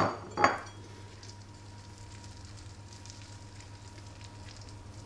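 Two brief knocks right at the start, then faint crackling of the crisp phyllo crust as a freshly baked cheese banitsa muffin is pulled apart by hand.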